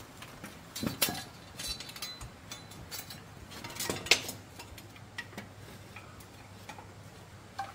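A handful of sharp, uneven knocks and clinks of a hand tool striking wood, the loudest about four seconds in.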